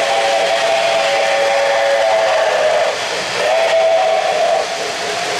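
Model steam-locomotive whistle sounding from the Lionel O-gauge PRR S2 turbine: a chord of three close tones, one long blast of about three seconds, then a short blast of about a second, over the steady rumble of the model trains running on the track.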